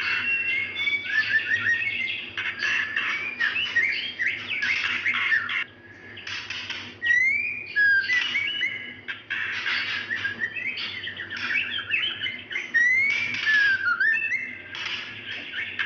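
Female white-rumped shama (murai batu) giving a rapid run of short rising and falling whistles mixed with scratchy notes, with a brief pause about six seconds in: the whining call a female in breeding condition uses to summon a male.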